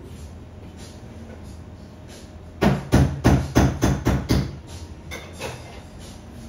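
A quick run of about seven loud knocks, roughly three a second, over a low hum, starting a little way in, with two fainter knocks after them.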